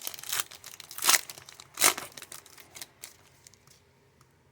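Trading cards and their pack being handled: a run of crinkling rustles, with two louder swishes, about a second in and just under two seconds in, as cards are slid and flipped. It dies down after about three seconds.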